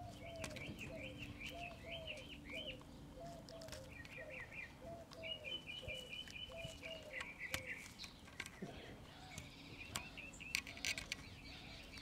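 Birds calling in the background. A low, short call repeats about twice a second and stops about seven and a half seconds in, while higher chirping trills come and go above it.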